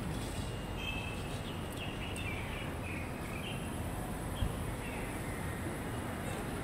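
Steady outdoor street noise with small birds chirping, mostly in the first few seconds, and a single sharp knock about four and a half seconds in.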